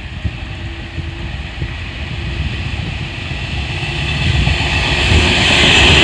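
JR 103-series electric commuter train approaching along the track, its running rumble building steadily and loudest near the end as it draws alongside.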